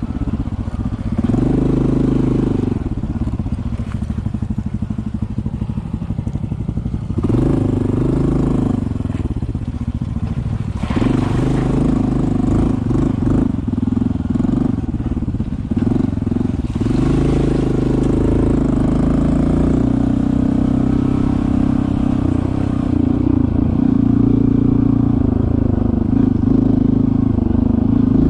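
Honda CT125 motorcycle's single-cylinder engine running under a varying throttle, surging in several bursts and easing back in between.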